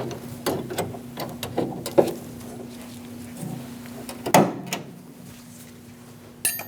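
Scattered clicks and knocks of the door lock rods and their plastic retaining clips being pushed into place on a new lock actuator inside the van's rear door; the sharpest snaps come about two seconds in and again a little past four seconds.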